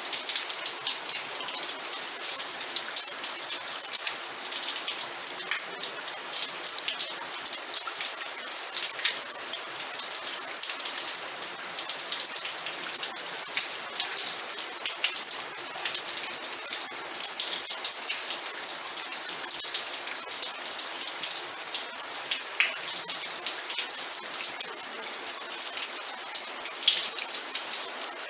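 Steady rain falling, a constant hiss with many small drops pattering irregularly.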